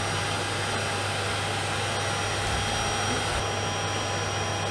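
Vorwerk Folletto (Kobold) VK220S upright vacuum cleaner running steadily with an even motor whine and airflow hiss. Its dust bag is full: the bag indicator shows yellow, the sign that the bag needs changing.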